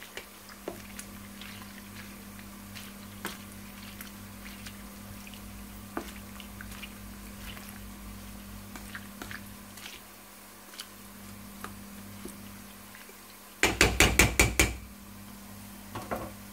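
Plastic slotted spoon stirring blanching dandelion leaves in hot water in a stainless steel pot, with scattered light taps and clinks against the pot over a steady low hum. Near the end comes a quick run of about eight loud knocks.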